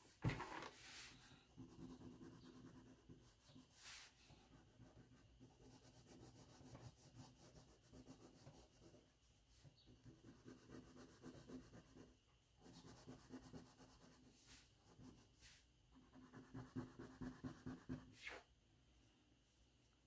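Faint scratchy rubbing of a green crayon shading back and forth on paper, in short uneven spells, loudest shortly before it stops near the end.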